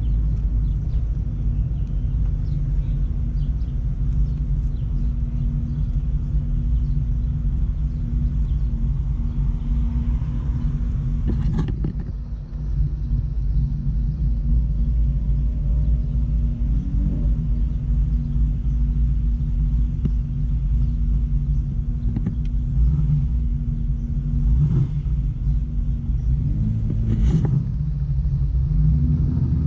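The 5.0 V8 of a 1994 Mustang GT running steadily at a cruise, a low, even engine note. There are two sharp clicks, one about halfway through and one near the end.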